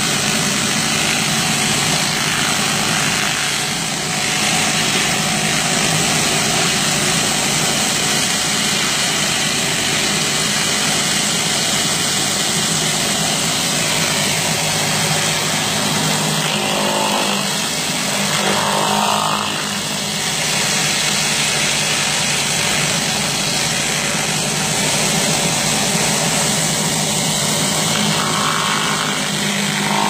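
A 5000 psi power washer running steadily: an engine's even hum under the hiss of high-pressure water spraying concrete.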